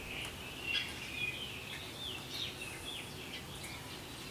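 Songbirds chirping and singing: a string of short high notes and quick downward slurs, over faint steady background noise.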